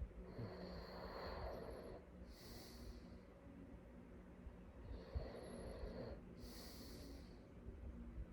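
A sleeping person snoring: two slow breath cycles, each a rasping snore lasting over a second followed by a shorter hissing breath.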